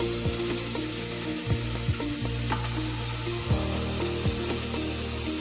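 A 2 kW handheld laser welder at work, giving an even hissing, crackling sizzle, over background music with held low notes.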